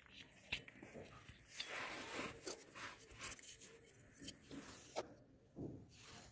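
Faint handling noise of a refrigerator compressor's plastic start relay being worked by hand on the compressor's terminals: light scrapes and a few sharp plastic clicks, the clearest about five seconds in, with a short scraping rustle about two seconds in.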